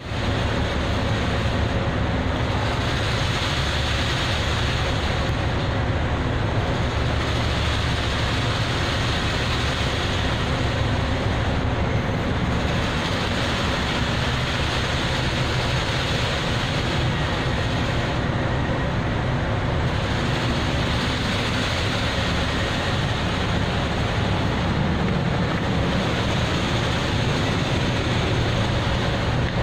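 Steady rush of wind and rough sea over a low, even hum of the ship's machinery. The hiss swells and eases every few seconds.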